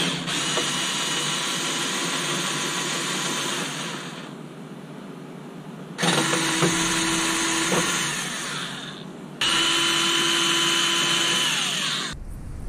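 Sandblasting cabinet blast gun firing compressed air and abrasive in three loud bursts of steady hiss with a faint whine. Each burst starts suddenly and dies away, and near the end the whine slides down in pitch as the air cuts off.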